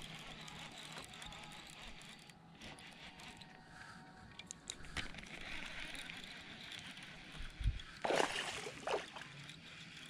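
Water sloshing and gurgling, then a low thump and two splashes about eight and nine seconds in, the first splash the loudest.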